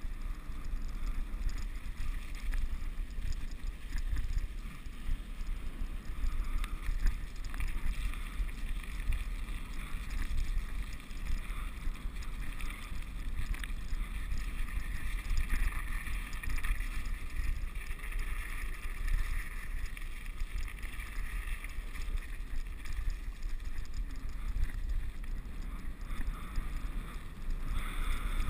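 Wind noise buffeting a GoPro action camera's microphone as a mountain bike rolls steadily over snow and slush, its tyres hissing on the wet track.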